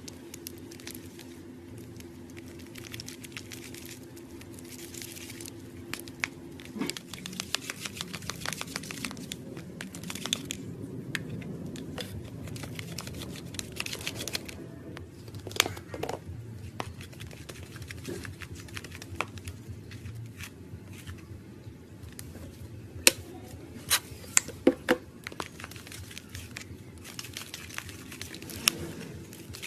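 Crinkling, crackling handling noise from hands working materials while making slime, full of scattered small clicks, with a few sharper, louder clicks about three quarters of the way through. A steady low hum runs under the first seven seconds or so, then stops.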